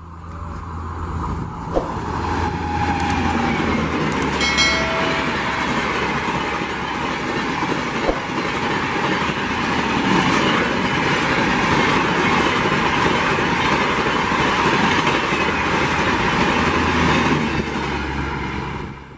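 A Rajdhani Express train with LHB coaches passing at speed: a steady, loud rush of wheel and coach noise over the track with a low hum underneath, building up over the first couple of seconds. A brief horn tone sounds about four and a half seconds in.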